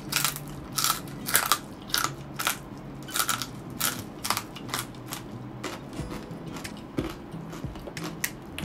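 Close-up crunching bites and chewing of crispy fried pork skin, loud crunches about twice a second, softening to quieter chewing after about five seconds.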